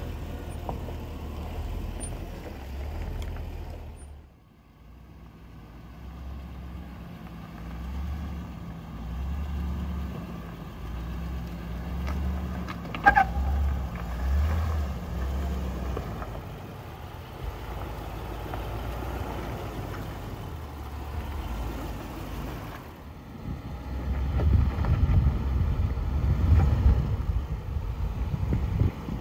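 Land Rover LR4 driving off-road: a low, uneven engine and drivetrain rumble, with a brief high squeak about thirteen seconds in and a louder, rougher rumble near the end.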